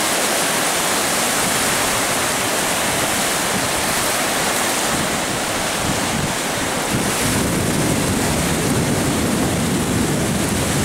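Ocean surf breaking and washing onto a beach: a steady rush, with wind on the microphone adding a low rumble that grows stronger about halfway through.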